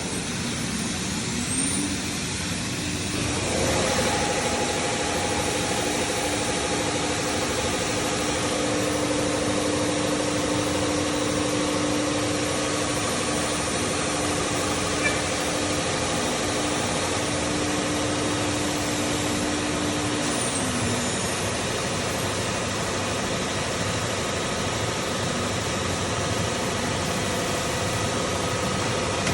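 CNC machine running: a steady mechanical whir with a humming tone that rises in a second or two in, holds, and falls away about twenty seconds in.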